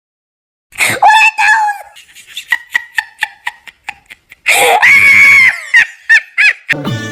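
Comic sound effects: high-pitched screaming and laughing voices with a quick run of clicks, a long shrill scream about two-thirds of the way in, and children's music starting again near the end.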